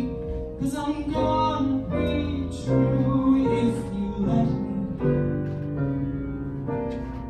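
Solo piano playing the instrumental accompaniment of a slow ballad, chords struck every half second to a second and left ringing.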